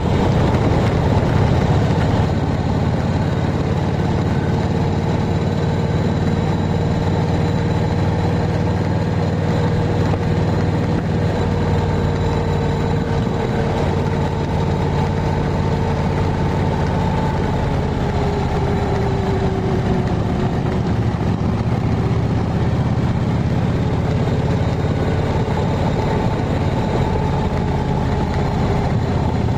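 Steady engine and road noise of a vehicle cruising along a paved road, heard from inside behind the windshield: a constant low drone, with a faint tone that drifts slowly lower in pitch around the middle.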